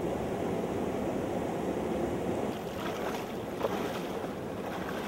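River water running steadily over a shallow bed, with irregular splashes of a person wading through it starting about halfway in.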